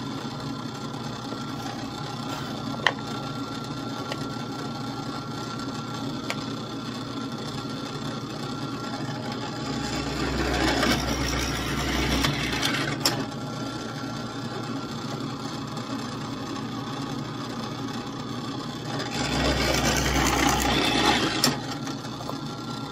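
Drill press motor running steadily, with two louder stretches of a 19/64-inch bit boring into a wooden block, about ten seconds in and again near the end.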